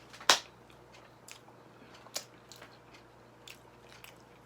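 Close-up eating sounds of a person chewing takoyaki: scattered short, wet mouth clicks about a second apart, the loudest one just after the start.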